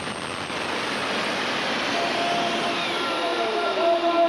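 Case IH 7230 diesel super stock pulling tractor running flat out under load as it drags the pulling sled, a loud, dense engine-and-exhaust noise. From about halfway through, pitched tones appear and slide steadily downward as the tractor comes alongside.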